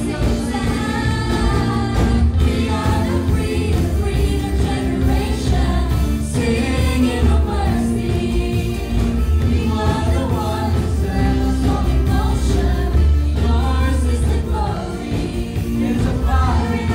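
Live worship band playing an upbeat song: a male lead singer on microphone with backing singers, over acoustic guitar, keyboard and a steady, heavy bass beat.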